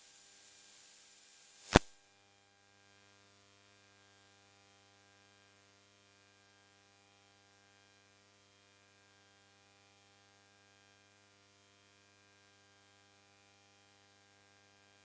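Near silence: faint hiss, then a single sharp click about two seconds in, followed by a faint, steady electrical mains hum.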